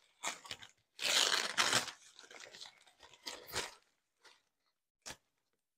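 Packaging around an amaryllis bulb being torn and crinkled open by hand: three rough, crunching rustles, the longest and loudest about a second in, tailing off into a couple of light clicks.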